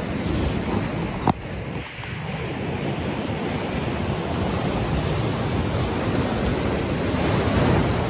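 Sea waves breaking and washing over a rocky shore, a steady roar with wind buffeting the microphone, swelling louder near the end as a wave breaks close by. A single sharp click about a second in.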